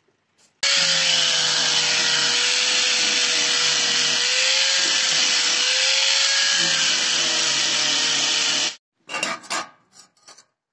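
Handheld angle grinder running with its disc grinding down the wooden handle of a homemade cleaver: a loud, steady whine whose pitch sags slightly as the disc bites into the wood. It stops abruptly near the end, followed by a few short knocks and rattles.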